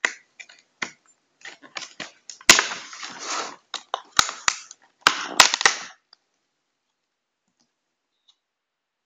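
Sealed packaging being torn open by hand: a run of sharp cracks and crackling, rustling bursts for about six seconds, then it stops.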